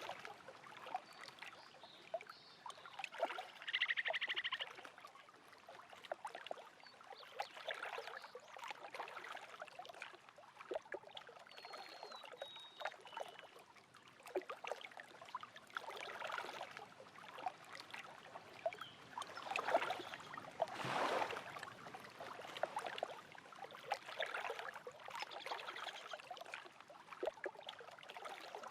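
Small lake waves lapping and splashing at the shore in irregular surges. A bird gives a short buzzy call about four seconds in, and a thin high whistle sounds near twelve seconds.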